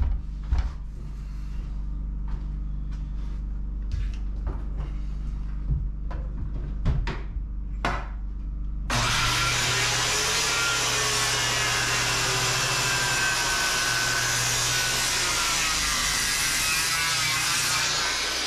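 A DeWalt circular saw cutting across a thick milled timber post. It starts abruptly about halfway in and cuts at one steady level until just before the end, after a few light knocks in the first half.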